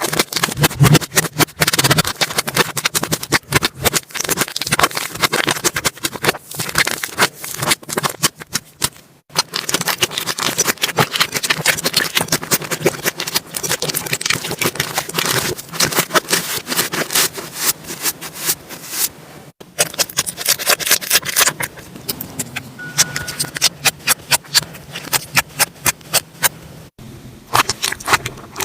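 Slime being squeezed and pressed by hand close to the microphone: a dense, irregular run of sticky clicks and pops, broken by a few short gaps and thinning out to sparser clicks in the last few seconds.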